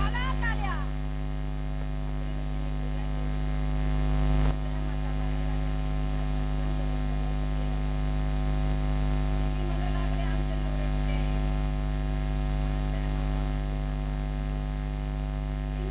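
Steady electrical mains hum and buzz from an amplified sound system, a low drone with a stack of higher buzzing tones, dipping slightly about four and a half seconds in. Faint voices come through near the start and again around ten seconds in.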